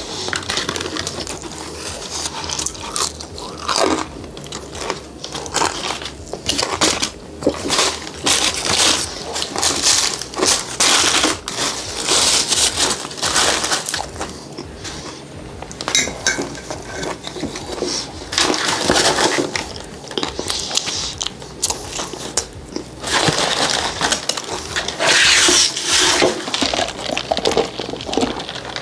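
Fried chicken with a hard crust being chewed close to the microphone, with irregular crunching, along with the crinkling of a paper bag and wrappers being handled.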